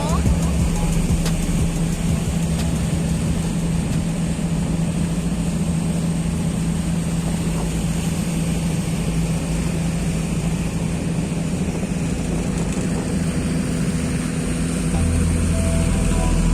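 An engine running steadily: a constant low hum over an even hiss, which grows a little louder and fuller near the end.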